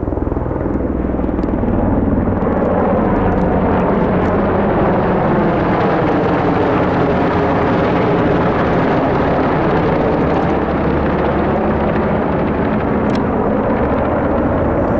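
A military helicopter flying low over the ridge and passing close overhead, loud and steady, building up over the first couple of seconds.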